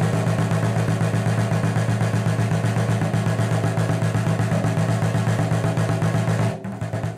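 A motor engine running steadily at an even speed, with a fast, even pulse. It drops away about six and a half seconds in.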